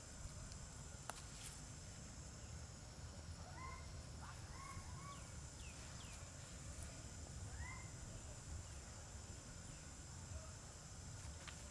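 Newborn long-tailed macaque giving several short, arched squeaks while nursing, clustered from a few seconds in to about two-thirds through. Underneath runs a steady, high insect drone.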